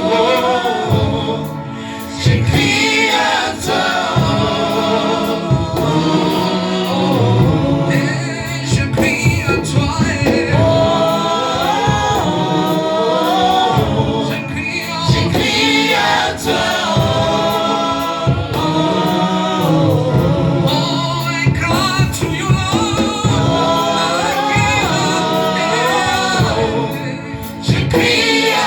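Gospel worship music: a group of voices singing together over steady low accompaniment.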